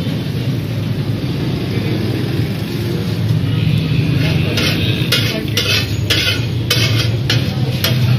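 Metal spatula striking and scraping on a large flat iron griddle (tawa), a run of sharp clacks about two a second starting about halfway through, over a steady low hum.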